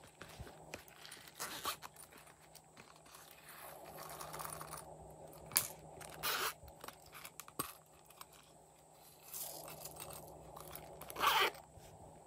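Hands handling and squeezing soft plastic squishy toys, then sprinkling sequins into a tray of slime: scattered rustling and scraping with a couple of sharp clicks, the loudest rustle near the end.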